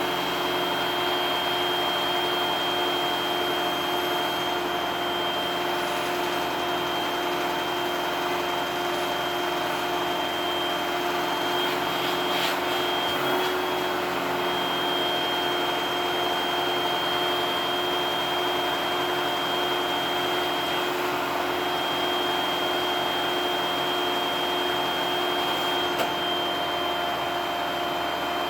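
Vacuum cleaner running steadily, its motor giving a constant high whine over the rush of air.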